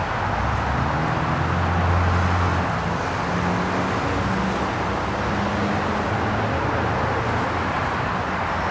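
Road traffic noise, with a vehicle passing whose low engine hum is loudest about two seconds in.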